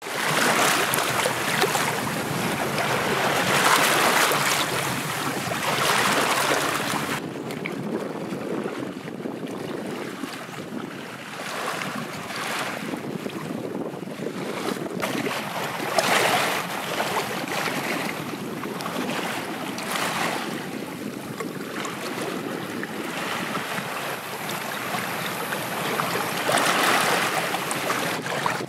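Small sea waves washing and lapping over a rocky shoreline, swelling and falling back every few seconds, with water splashing. Louder and fuller for the first seven seconds, then quieter.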